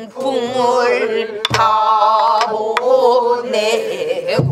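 A group singing a Namdo (southern Korean) folk song with heavy wavering vibrato, accompanied by a few sharp strokes on buk barrel drums.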